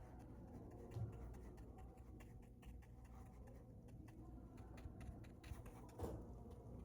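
Faint low hum with scattered, irregular light ticks and clicks, and soft thumps about a second in and near the end.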